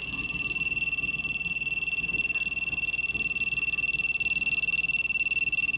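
AGT-2000 portable carbon monoxide detector's alarm sounding: a continuous, high-pitched, rapidly pulsing beep. It is triggered by truck exhaust fumes, with the detector reading 1,000 ppm.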